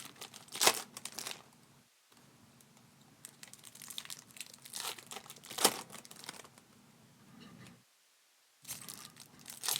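Trading card pack wrappers crinkling and tearing as packs are opened by hand, in scattered bursts of crackle near the start, in the middle and near the end.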